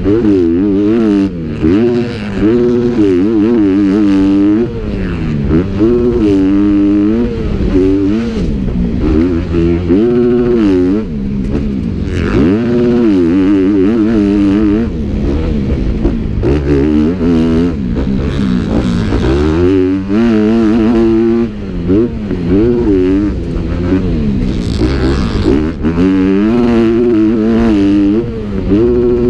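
Motocross bike engine racing, its pitch climbing and falling again and again every second or two as the throttle is opened and shut, with a few brief drops when it is backed off.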